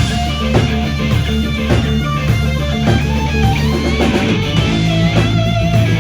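Live rock band playing: an electric guitar holds sustained lead notes with a wide vibrato over bass guitar and drums.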